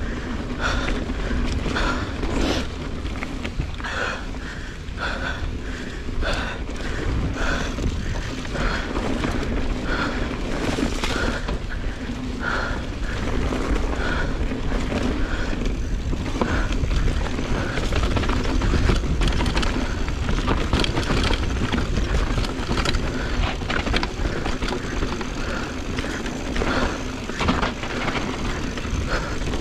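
Mountain bike ridden along a dirt trail: a steady low rumble of wind and tyres, with frequent knocks and rattles from the bike over rough ground.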